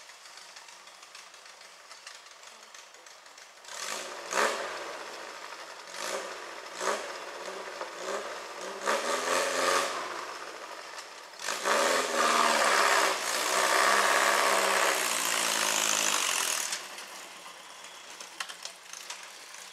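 Volkswagen-engined rail buggy revving in repeated bursts as it climbs, the engine note rising and falling in pitch. From about four seconds in the revs come in short surges, then a long, louder pull from about twelve seconds in that drops away about five seconds later.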